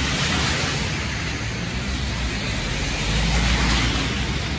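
Street traffic on a wet road: a steady hiss of tyres on the wet asphalt with a low engine rumble that swells in the second half as vehicles pass close by.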